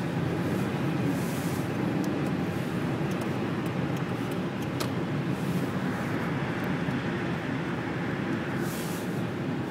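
Steady road noise inside a moving car's cabin on a wet expressway: tyre and engine rumble, with a few brief hissing swells.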